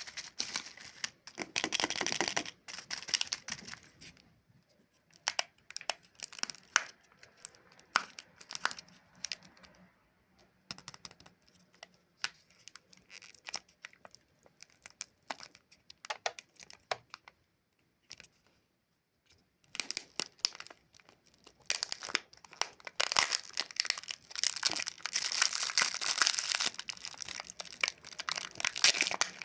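Chupa Chups lollipop wrapper crinkling and being torn open: dense crackling at the start, scattered sharp crackles through the middle with a brief pause, then steady heavy crinkling through the last third.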